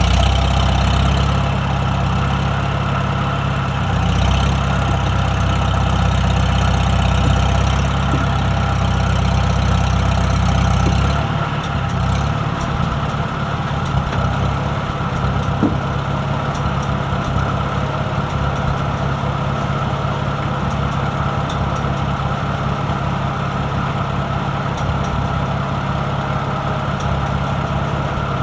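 A motor vehicle's engine running steadily, with a heavy low rumble that eases to a lighter, even run about eleven seconds in.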